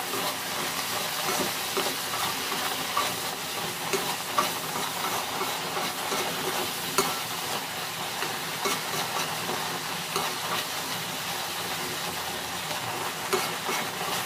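Tomatoes and eggs sizzling steadily as they fry in a pan, with scattered clicks and scrapes of wooden chopsticks stirring the scramble against the pan.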